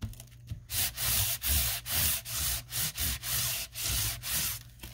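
An ink pad rubbed back and forth over the ridges of a piece of corrugated cardboard, about two rubbing strokes a second, weakening near the end. The cardboard is being inked so it can be pressed onto paper to print lines.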